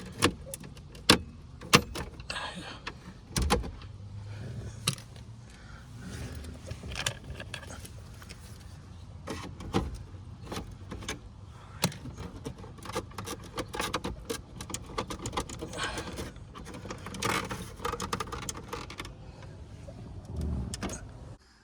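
Irregular clicks, knocks and scraping of a screwdriver and hand tools working at plastic dashboard trim and its bolts, with a few louder knocks in the first few seconds.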